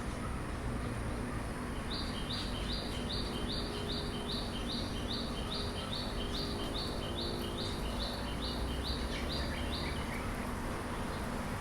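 A bird repeating one short, high chirp about two or three times a second, starting about two seconds in and stopping near the end. Under it runs a steady low background hum.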